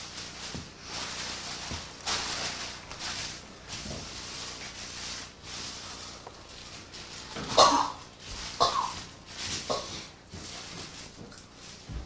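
Rustling and handling of plastic and paper, in short irregular bursts, with three louder short sounds in the second half.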